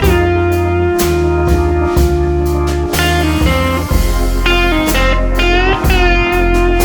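Background music: an upbeat guitar-led track with bass and drums, with a steady beat.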